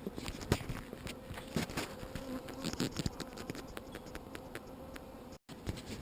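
Honeybees buzzing as a steady hum around a colony just transferred into a new hive, the bees still stirred up, with scattered light clicks and knocks over it.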